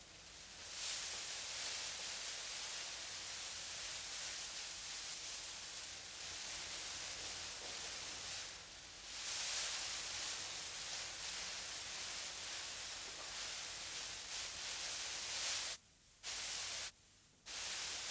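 Steady static hiss like white noise, swelling in about a second in, dipping briefly midway, then cutting off abruptly twice near the end.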